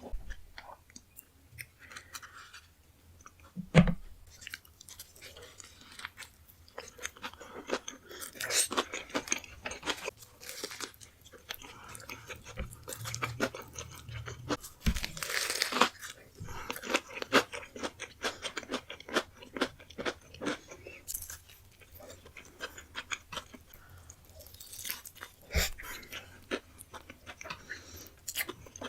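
Close-miked eating: bites into a saucy burger and wet, crunchy chewing with lip smacks, irregular throughout, with one loud thump about four seconds in.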